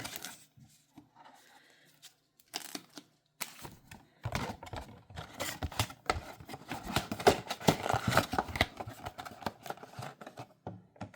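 Crinkling and tearing of a trading-card mega box's packaging as it is pulled open and its packs handled. Scattered light clicks come first, then a dense stretch of crackling from about four seconds in to near the end.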